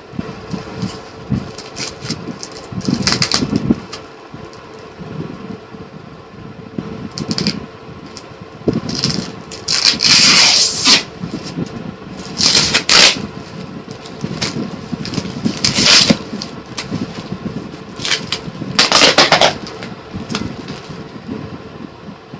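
Brown packing tape and plastic wrap being slit with a blade and ripped off a long cardboard parcel: a series of loud tearing rips a few seconds apart, the longest and loudest about ten seconds in, with crackling and scraping between them. A steady low hum runs underneath.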